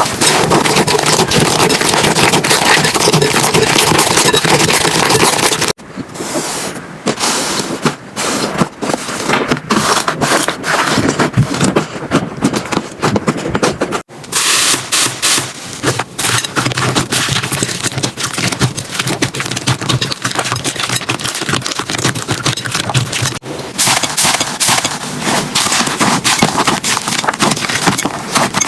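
Slime being squished, poked and stretched by hand: a dense run of small sticky clicks and pops. The sound changes abruptly about six, fourteen and twenty-three seconds in, as one slime gives way to the next.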